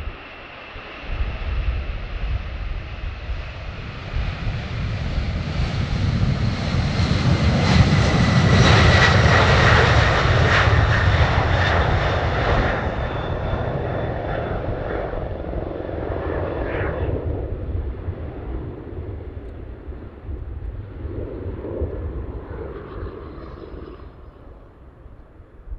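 McDonnell Douglas MD-11's three jet engines at takeoff power, the rumble swelling as the jet rolls and lifts off, loudest about eight to eleven seconds in, then fading as it climbs away. A steady high whine runs through the rumble.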